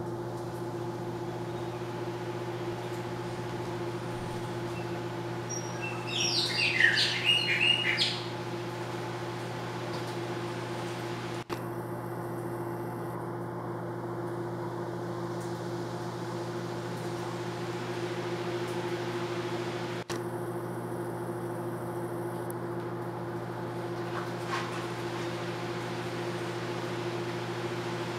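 A steady mechanical hum throughout, with a brief burst of high, quick chirps about six seconds in that lasts around two seconds and is the loudest sound.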